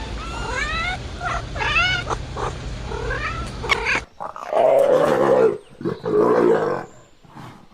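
An animal calling: a run of short pitched cries that slide up and down over a steady low hum. Then, after an abrupt change, two long, loud, lower yowling calls.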